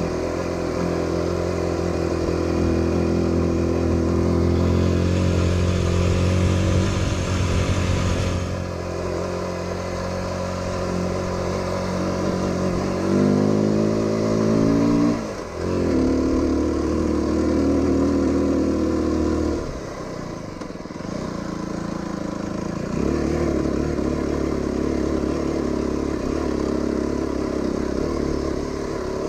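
Aprilia RX125 motorcycle engine under way, running steadily. About halfway it revs up with a rising pitch for a couple of seconds and then drops sharply. A few seconds later it goes quieter briefly, then runs steadily again to the end.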